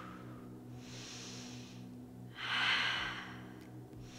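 A woman breathing deeply while holding a yoga pose: one breath about a second in and a louder one about two and a half seconds in, over a faint steady hum.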